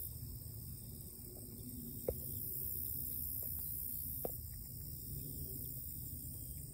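Faint steady low hum with a constant hiss, and two small clicks about two seconds and four seconds in.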